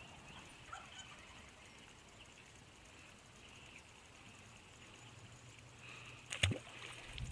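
Quiet pond-bank outdoor ambience with a few faint bird chirps, then one short sharp splash about six and a half seconds in as the released black crappie drops back into the water.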